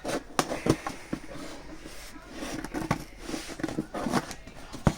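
Packaging being handled and opened: crinkling and rustling with irregular sharp clicks and taps, the loudest in the first second and one more near the end.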